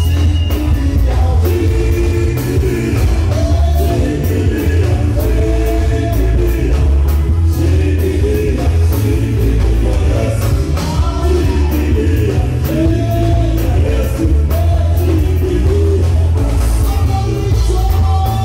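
Loud dance music with heavy bass and a steady drum beat, with voices singing over it.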